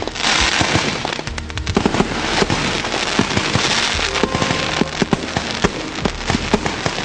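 Fireworks going off in a dense barrage of rapid crackles and bangs, with music playing underneath.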